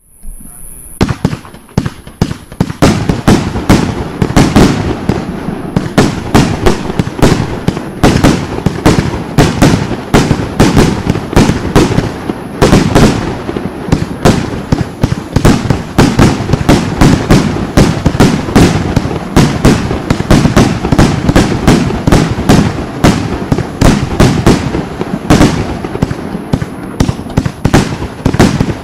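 A 100-shot, 30 mm firework compound cake firing: a brief hiss, then a dense, unbroken barrage of launches and bursts, several shots a second.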